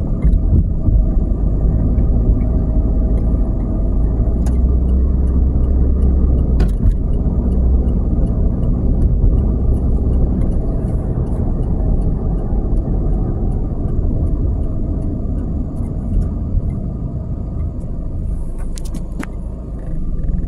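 Steady low rumble of road and engine noise heard from inside a moving car, with a few faint clicks; it eases near the end as the car slows to a stop.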